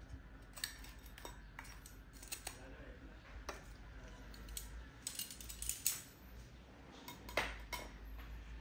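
Kitchen utensils clinking and scraping against plates and dishes while food is served, a run of scattered sharp clicks with the loudest about seven and a half seconds in.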